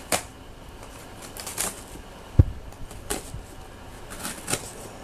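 Cardboard shipping box being handled and turned over by hand: scattered short scrapes and rustles of cardboard, with one low thump about two and a half seconds in.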